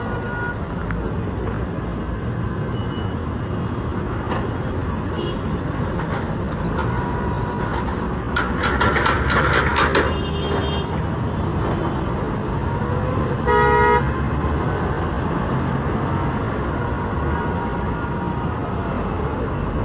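Road traffic running steadily. Partway through there is a louder, rattling stretch lasting about two seconds, and a little later a car horn gives one short toot.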